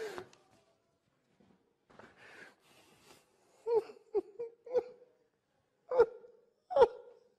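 A man laughing helplessly and trying to hold it in: breathy wheezes, then a string of short, high, squeaky bursts of laughter, the loudest two near the end.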